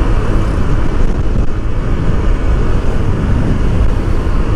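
Honda Click 150i scooter riding at road speed: a steady rush of wind on the microphone over the hum of its single-cylinder engine.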